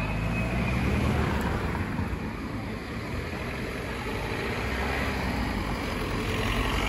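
Steady street traffic noise: motor vehicles running by with a low rumble.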